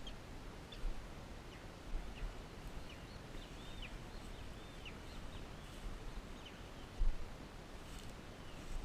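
Birds calling in many short, high chirps and curved whistles, over a low rumble, with a thump about seven seconds in.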